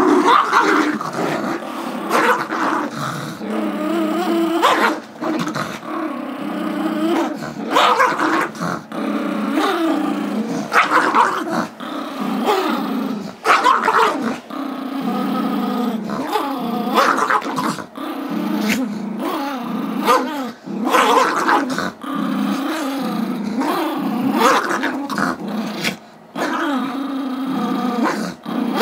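Small dogs, a Chihuahua–Yorkie mix and a Yorkshire terrier, growling without pause while they play tug-of-war over a squeaky toy. Short, sharper outbursts come every couple of seconds.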